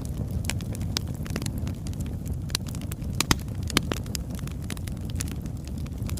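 Birchwood fire burning, with a steady low rumble of flames and frequent sharp, irregular crackles and pops, the loudest a little after three seconds in and near four seconds.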